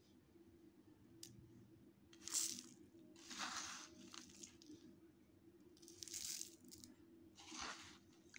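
A spatula scraping and scooping a dry, gritty mixture of salt, chili and dried shrimp out of a pan, heard as four short crunchy scrapes. A faint steady hum runs underneath.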